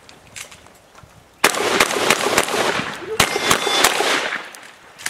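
A rapid string of shotgun shots starting about a second and a half in, roughly six or seven reports with a long echo after each.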